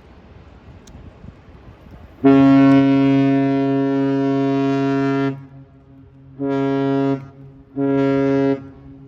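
Ship's horn of the cruise ship Viking Octantis sounding a salute: one long blast of about three seconds, then two short blasts.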